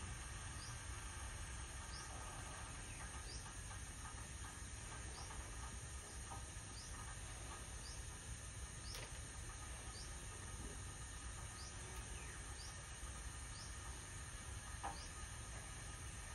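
Faint steady insect chirring, with a short high chirp repeating about once a second.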